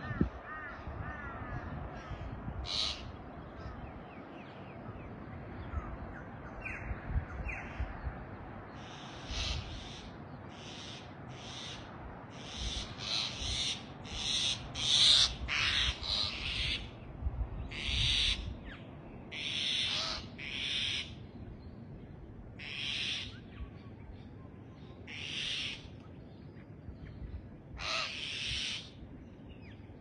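Birds calling at sunrise: a long series of harsh, screechy calls, each about half a second, repeating roughly once a second through the middle and loudest about halfway through, with a few fainter calls earlier over a low rumble.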